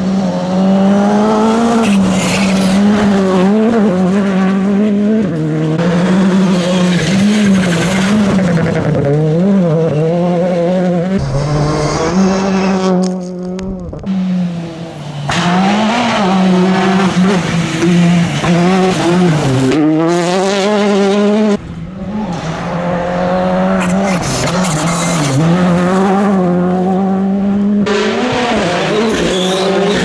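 Rally cars, among them a Škoda Fabia Rally2 and a Citroën DS3 R5, passing one after another on a gravel stage. Their turbocharged engines rev hard, the pitch climbing and dropping with gear changes and lifts, over the hiss and spray of gravel from the tyres. The sound breaks off abruptly twice as one car's pass gives way to the next.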